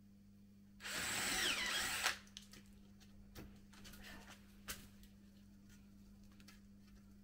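Power drill running for about a second, boring a hole in the wooden window frame, with a whine that shifts in pitch. It stops with a click and is followed by a few light knocks.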